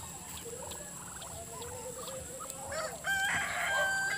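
A rooster crowing: one loud, long, steady-pitched call starting about three seconds in.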